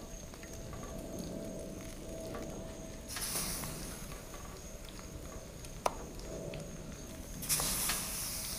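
Food sizzling on a hot Blackstone four-burner griddle, with louder hissing surges about three seconds in and again near the end as egg-dipped slices of bread are laid on the steel cooktop. A single sharp tap a little before six seconds.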